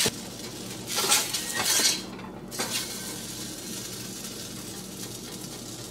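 Metal wok spatula scraping around a wok and clinking on a plate as stir-fried rice cakes are scooped out. There are a few scrapes in the first two seconds, then a quiet steady hum with little else.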